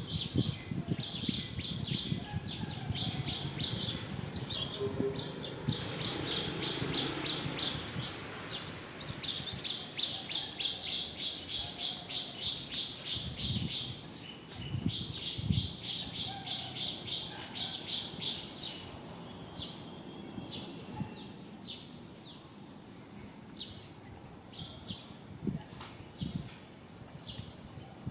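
A bird calling outdoors with fast runs of high chirps, about seven or eight a second. The runs go on for most of the first twenty seconds and thin to scattered single chirps later, over low rustling.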